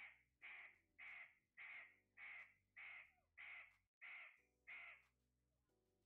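Caged parakeet giving a series of nine harsh squawks, a little under two a second, stopping about five seconds in.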